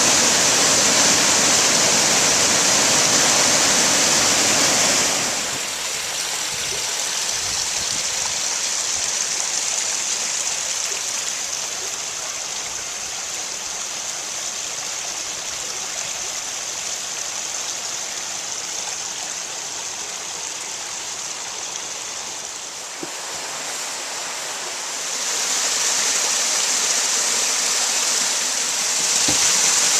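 Water rushing over the sawmill dam and sluice, a steady rush. Louder for about the first five seconds, softer through the middle, and louder again from about 25 seconds in.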